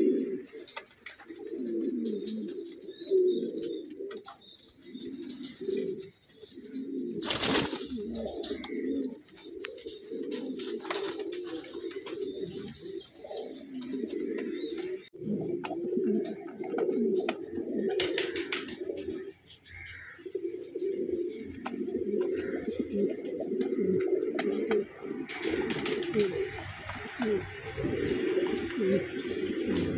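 Domestic pigeons cooing over and over, low throaty coos overlapping one another, with a sharp knock about seven seconds in.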